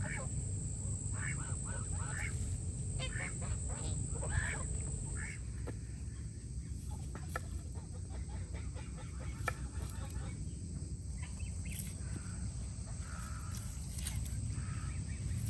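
Short animal calls, several in the first five seconds and a few fainter ones later, over a steady low rumble with scattered sharp clicks.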